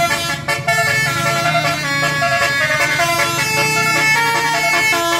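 Indonesian bus 'telolet' musical horn playing a quick tune of stepping, held notes over a low steady hum.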